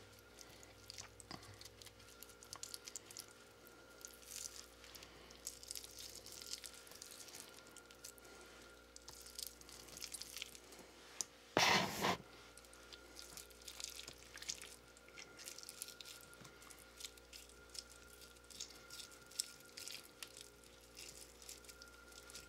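Small pieces of chopped ham dropped and spread by hand onto pizza dough, making many soft irregular pats and rustles, with one loud thump about halfway through. A faint steady hum runs underneath.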